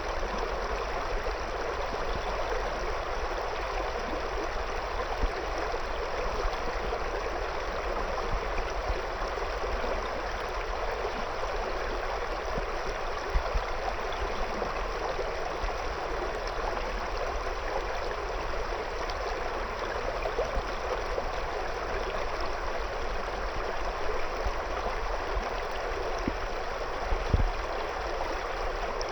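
Shallow river flowing steadily over and around stones, with a continuous rushing and gurgling of water.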